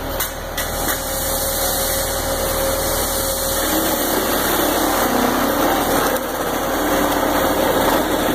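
Concrete mixer truck's diesel engine running steadily.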